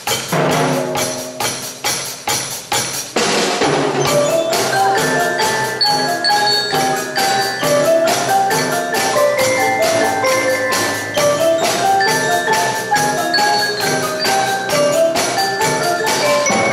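A percussion ensemble playing a steady, quick beat of sharp drum and block strokes. About three seconds in the playing gets louder and fuller, and marimba and other mallet keyboards carry a melody over the beat.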